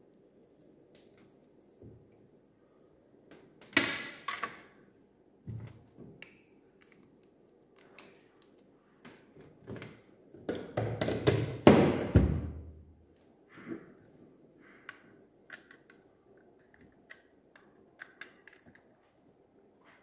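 Handling noises from a USB charging cable and a small plastic desk fan being moved about: scattered knocks, rustles and light clicks. The loudest cluster comes about ten to twelve seconds in.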